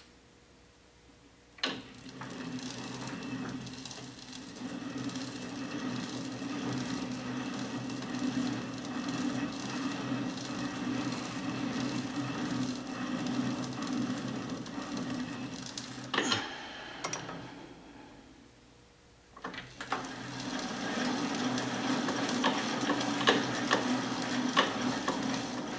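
Small Chinese lathe/mill/drill combination switched on with a click and running steadily under power, spindle and change gears turning while it cuts a left-hand thread. It stops about two thirds of the way through, starts again a couple of seconds later, and winds down near the end.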